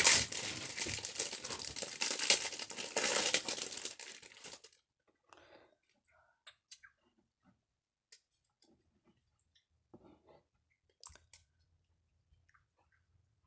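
Packaging crinkling and rustling as it is handled for about the first four and a half seconds, then only a few faint, scattered clicks and taps.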